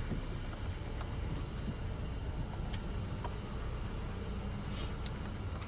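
Car engine idling, a steady low hum heard from inside the cabin, with a few faint clicks and rustles.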